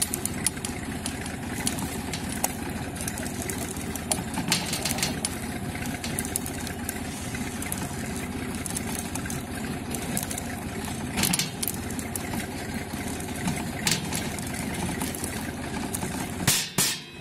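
Engine running steadily while a maize seed drill works, with a few sharp clicks and a louder cluster of knocks near the end.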